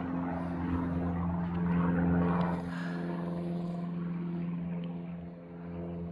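Small general-aviation airplane's piston engine and propeller droning steadily. The drone drops a little in level after about two and a half seconds.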